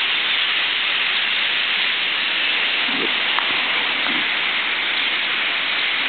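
A huge flock of starlings calling all at once, thousands of voices merging into one dense, steady hiss.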